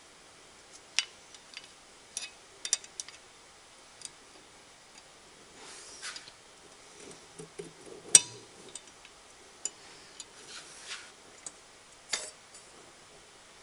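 Irregular sharp metal clicks and clinks as heavy-duty valve springs and retainers are compressed and fitted on a Cummins 5.9L 12-valve cylinder head with a hand-held valve spring compressor, with some light handling rustle. The loudest click comes about eight seconds in.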